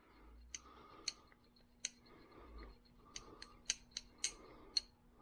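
Small drop-forged side cutters being opened and closed by hand, the jaws clicking shut about nine times at an uneven pace. The tool's freshly oiled pivot is being worked back and forth to loosen it and push out the old grime.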